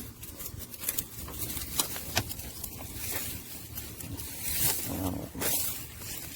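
Irregular rustling and scraping, broken by sharp clicks: handling noise of the mower's controls being worked.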